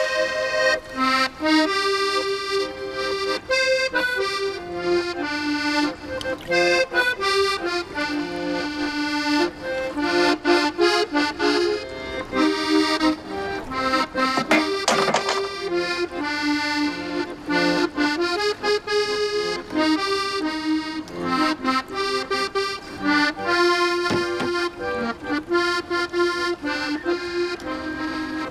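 Accordion playing a lively traditional dance tune, with quick melodic runs over a steady rhythm.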